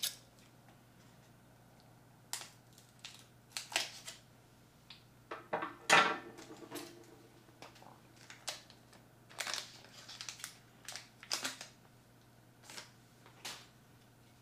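Scissors cutting open a foil Pokémon booster pack, with scattered crinkles and rustles of the foil wrapper and cards being handled. The loudest crinkle comes about six seconds in.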